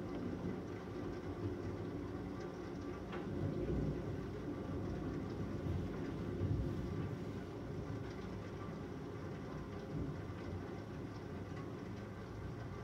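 Distant thunder rolling in a low, continuous rumble that swells a couple of times, about four and six seconds in.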